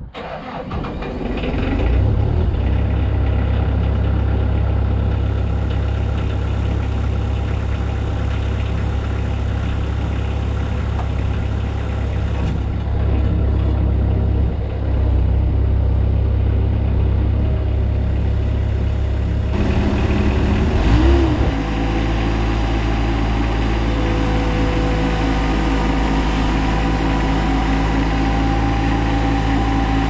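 Bobcat S185 skid steer's diesel engine running steadily. About two-thirds of the way through, the engine note briefly rises and falls, then settles at a different steady pitch as the throttle changes.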